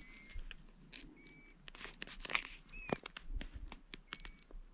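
Crackling and rustling of a plastic map case as the map and compass are handled, in short sharp crinkles. A bird whistles a few short, clear notes in between.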